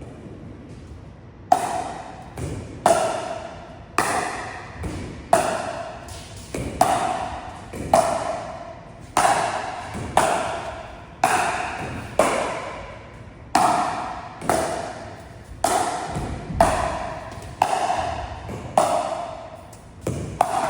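Pickleball paddles striking a plastic pickleball back and forth in a steady rally, a sharp hollow pock about once a second, with fainter ticks between the hits.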